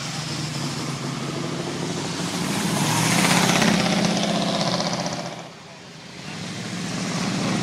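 First-generation Chevrolet Camaro convertible driving past, its engine rising to loudest about three to four seconds in as it passes close, then falling away. A second classic car's engine comes up near the end as it approaches.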